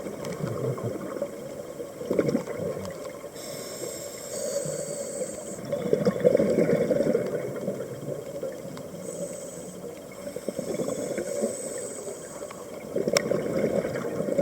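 Underwater sound of a scuba diver breathing through a regulator: a high hiss on each inhale and a rush of exhaled bubbles after it, about two breaths.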